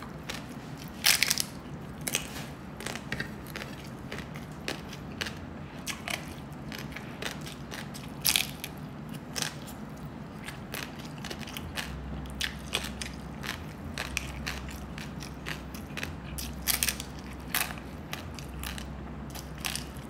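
Crispy lechon (roast pork) skin crunching and crackling as it is bitten and chewed, a steady run of small crunches with a few louder ones about a second in, around eight seconds in and late on.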